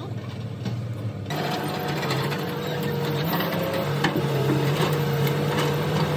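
A steady mechanical hum whose pitch wavers slightly, with a few light metallic clicks from a spanner working a fitting on a road roller's frame. The sound changes abruptly about a second in.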